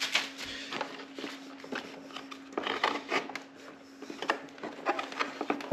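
Hard plastic knocking and clicking as a center support bar is pressed down and snapped into the clips on a 2020 Mustang GT's removed front bumper and grille, in scattered short strokes over a faint steady hum.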